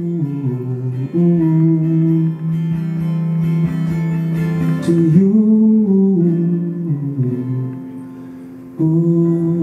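Live acoustic guitar strummed under a wordless sung melody in long held notes that rise and fall. The music dips briefly near the end, then comes back in.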